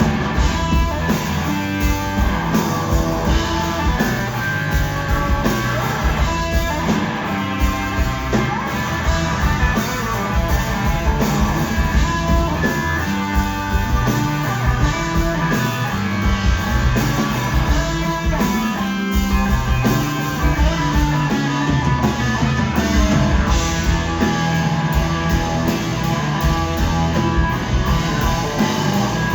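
Live blues-rock band playing, with electric guitar to the fore over bass and a steady drum beat.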